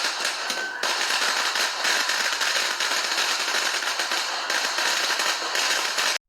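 A string of firecrackers going off in a rapid, continuous crackle of sharp pops, which cuts off suddenly near the end.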